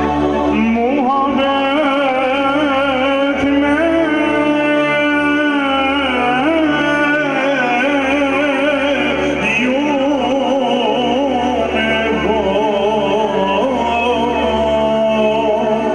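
Music: a singing voice with a wavering vibrato over steady held accompanying tones.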